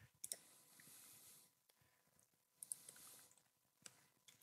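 Near silence broken by a few faint, scattered clicks of a computer mouse.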